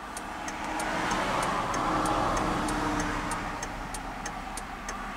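2005 Dodge Ram 2500's 5.9-litre Cummins turbodiesel running, heard from inside the cab, growing a little louder over the first two seconds. A light, even clicking sounds about twice a second over it.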